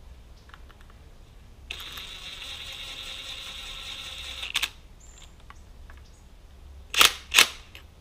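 Ratchet wrench clicking steadily for about three seconds as it runs a nut down on the coilover, then two sharp metal clacks near the end.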